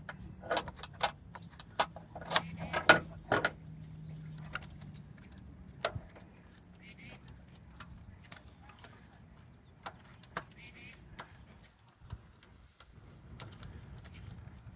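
Hammer tapping lightly and irregularly at the carburetor's mixture screw caps, trying to knock them loose. The taps are short sharp clicks, densest in the first few seconds and sparser after.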